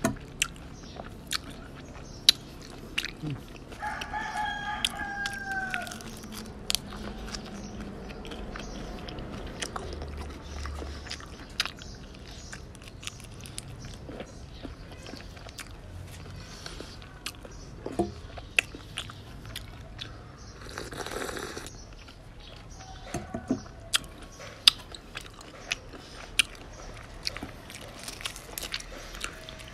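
Close-up chewing, crunching and mouth clicks of someone eating raw shrimp and fresh leafy herbs. A rooster crows once in the background about four seconds in, the call falling in pitch at its end.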